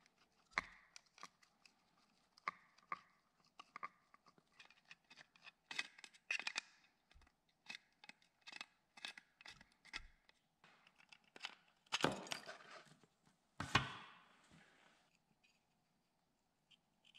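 A screwdriver and pliers prying and scraping at the rusty sheet-metal head of an old flashlight: a run of small metal clicks and scrapes, with two longer, louder scrapes late on.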